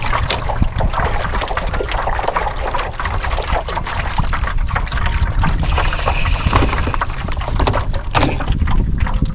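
Water sloshing and gurgling against the hull of a plastic pedal kayak, with scattered small knocks and clicks. A brief high hiss comes about six seconds in.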